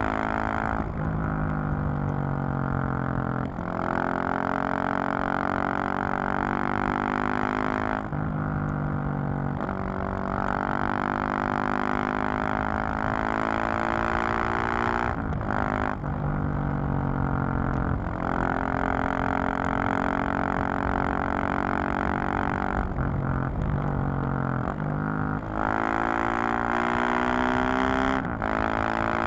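2020 KTM 690 SMC-R supermoto's single-cylinder four-stroke engine and exhaust under riding load, the note rising and falling with the throttle. Every few seconds the note breaks off sharply, as at a gear change or a roll-off of the throttle, about half a dozen times.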